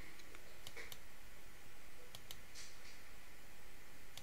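A few light computer-mouse clicks, scattered and irregular, over a steady low background hiss.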